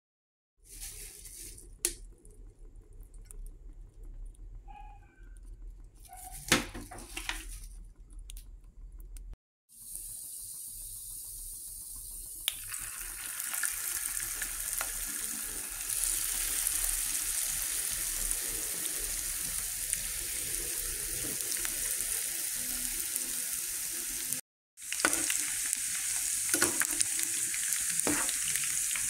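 Cornflour-coated chicken bites sizzling and frying in hot oil in a pan, a steady hiss that grows louder as more pieces go in. Before that, about the first third holds scattered clicks and knocks of kitchen handling, the sharpest a little over six seconds in.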